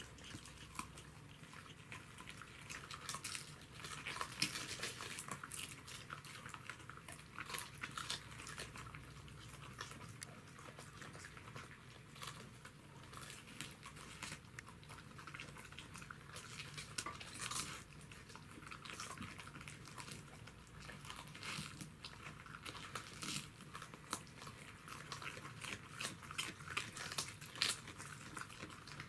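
Two Welsh corgis biting and chewing raw cabbage leaves: a steady run of irregular, crisp crunches.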